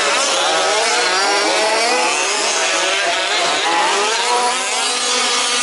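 Several 1/5-scale off-road RC race cars' small two-stroke petrol engines running at once, each revving up and dropping back as they race, in an overlapping, wavering buzz.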